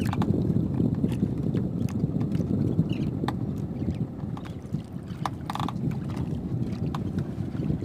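Wind rumbling on the microphone over water washing against an outrigger boat at sea, with scattered light clicks and knocks from the boat and line.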